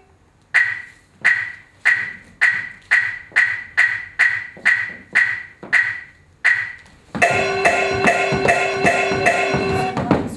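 Chinese opera percussion: a run of sharp, ringing metal strikes that speeds up. From about seven seconds it gives way to a loud, rapid clash of gong and cymbals over a steady, sustained gong tone.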